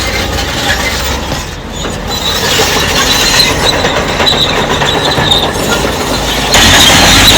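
Bulldozer's steel crawler tracks screeching with a high, wavering tone as the machine moves, over the low rumble of its diesel engine. The sound gets abruptly louder about six and a half seconds in.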